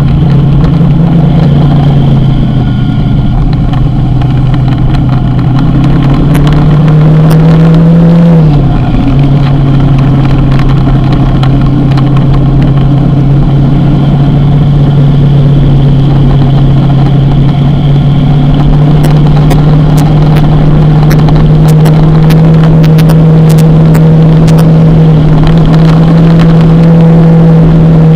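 Motorcycle engine running while riding, its pitch climbing slowly, dropping sharply at a gear change about eight seconds in, then climbing steadily again.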